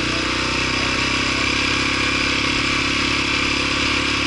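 Dual-sport motorcycle engine running at a steady pace while riding a sandy dirt track, with a steady rushing noise over it.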